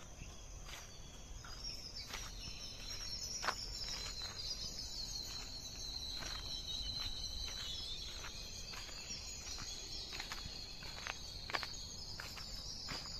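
A steady, high-pitched insect chorus, with scattered crunching footsteps on the ground.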